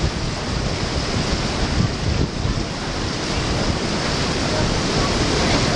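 Water gushing through the gate of an old canal lock and churning in the lock chamber, a steady rushing, with wind buffeting the microphone.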